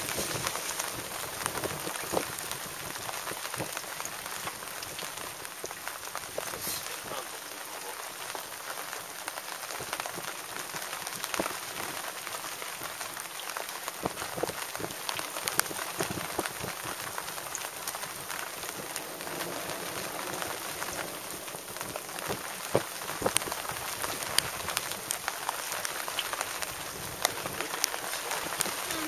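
Rain falling in a thunderstorm: a steady hiss with many sharp drop impacts scattered through it.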